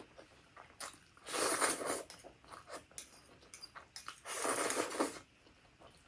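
Close-miked slurping of black bean noodles, twice, each slurp about a second long, with faint chewing clicks between them.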